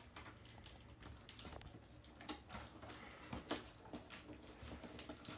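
Scissors working at thick plastic zip ties holding a replica belt in its cardboard box: faint scattered clicks and snips with rustling of the packaging, one sharper click about three and a half seconds in.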